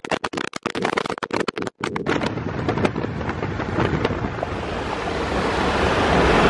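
Wind buffeting the microphone of a car accelerating hard in a roll race: choppy and cutting in and out for about the first two seconds, then a steady rush of wind and road noise that grows louder as the speed builds.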